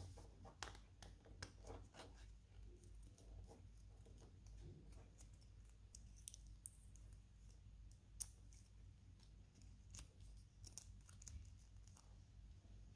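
Faint, irregular clicks and small metallic ticks of a brass ring and snap hook being handled and fitted onto a leather strap, with a sharper click a little past the middle.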